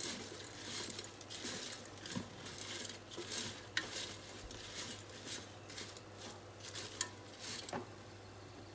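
A utensil stirring and turning freshly air-fried chips, with irregular scraping, rustling and light clattering against the cooking basket, easing off near the end. A faint steady low hum runs underneath.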